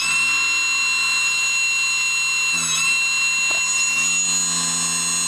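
MAC 2000W electric motor running with no load at full speed on a 20S (about 76 V) battery pack, giving a steady high-pitched whine with a brief dip in pitch about halfway. It draws about 4 A with no load at roughly 5,000 RPM.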